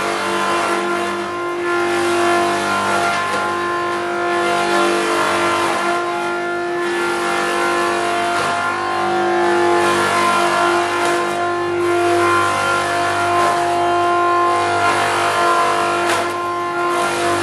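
Baran 4YT60 wood shaving machine running under load as it turns out bedding shavings: a steady machine hum with several held tones over a hiss. There is a brief knock near the end.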